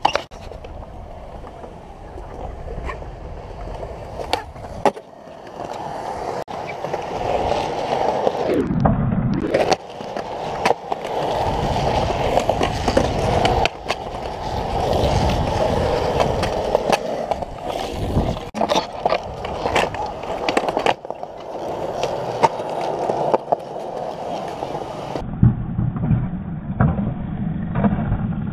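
Skateboard wheels rolling over concrete in a steady roar, broken by sharp clacks of boards hitting the ground now and then.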